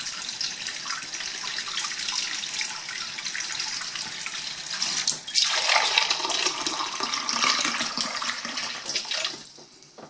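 Warm water running from a tap fed by a TMV3 thermostatic mixing valve and an under-sink water heater, left to run so the mixed water settles at its set temperature. The flow gets louder and fuller about five seconds in, then tails off near the end.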